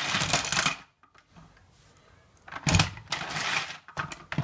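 Plastic toy windmill on a Weebles Weebledown Farm playset spinning after its button is pressed, a short rattling whirr. About two and a half seconds in comes a second, longer plastic rattle as the Weeble rooster ends up down the slide.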